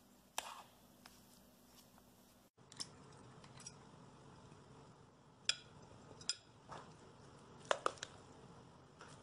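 Scattered sharp clicks and taps of utensils against a stainless steel pot and glass dishes as thick taro cake batter is stirred and scooped, about half a dozen knocks over a faint background, with a brief dropout about two and a half seconds in.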